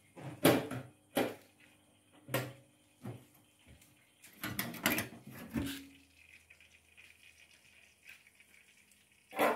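Metal hot-smoker box being opened and handled: a series of sharp knocks and clatters of its lid and tray, the loudest about half a second in and another pair near the end.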